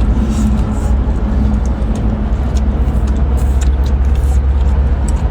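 Steady low drone of a boat's engine running, with scattered small clicks of shellfish shells being cracked and peeled.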